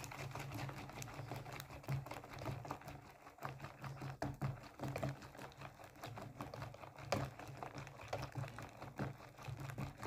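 Wire balloon whisk beating thick cake batter by hand in a plastic bowl: a fast, irregular run of light clicks and taps as the wires hit the bowl, over a low steady hum. This is the semolina being beaten into the egg, sugar, oil and milk mixture.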